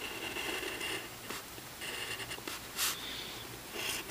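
Graphite pencil scratching on paper, drawing lines in several short strokes with brief pauses between them.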